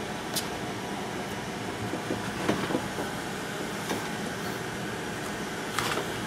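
A few light taps and knocks from a tablet being handled on a desk, over a steady background hiss.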